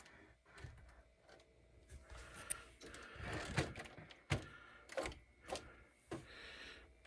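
Faint clicks and short plastic-and-metal rattles from an RC crawler truck's suspension and body as it is pressed down and springs back up on its shocks, now fitted with medium springs. The clicks are sparse at first and come closer together from about four seconds in.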